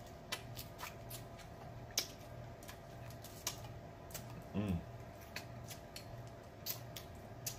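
Close-up eating of snow crab legs: scattered sharp clicks and cracks as the shells are snapped apart and picked, with the meat sucked out. A short hummed "mm" about four and a half seconds in.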